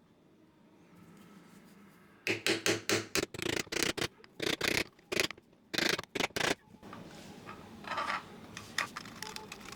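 Quick, loud scraping strokes on hard parts for about four seconds, starting a couple of seconds in, then quieter rubbing and handling noises, as 3D-printed mount parts are worked and assembled by hand.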